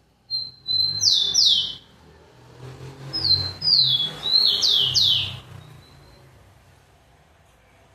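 Rufous-collared sparrow (tico-tico) singing two phrases of clear whistles. Each phrase is a held note followed by quick, sharply falling whistles, and the second phrase begins about three seconds in.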